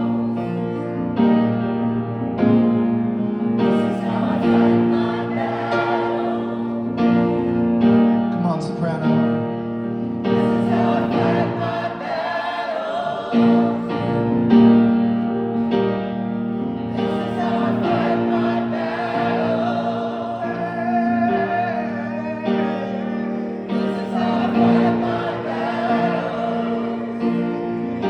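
A choir singing a gospel worship chorus over steady held keyboard chords, with a wavering lead voice on top.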